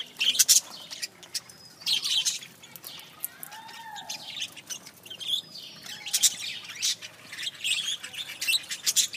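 Cockatiel chirping: many short, high chirps in an irregular series, with one lower call that rises and falls about three and a half seconds in.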